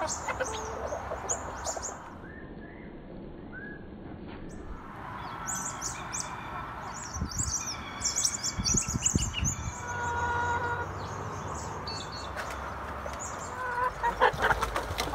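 Backyard hens clucking and calling, with small birds chirping in the background.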